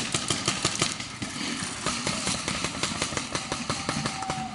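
Paintball markers firing rapid strings of shots, several pops a second, continuing throughout.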